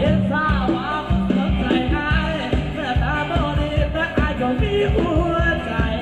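Live band music with a singer and a steady dance beat.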